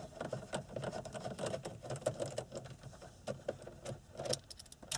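Torx 20 screwdriver working out the radio's mounting screws: a run of quick, irregular small clicks of metal on metal.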